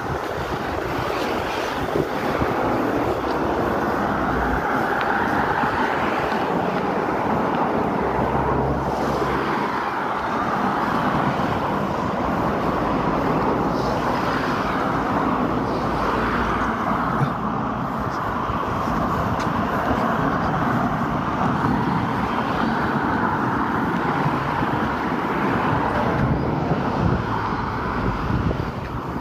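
Steady road traffic noise, with no single event standing out.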